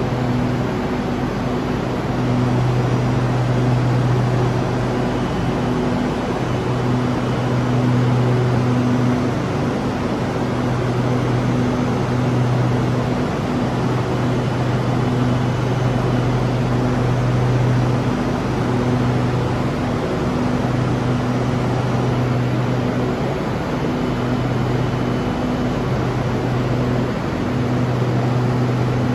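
A stationary SRT Red Line electric train (Hitachi AT100) standing at the platform: a steady rushing hum from its air-conditioning and auxiliary equipment, with a low drone that fades in and out every few seconds.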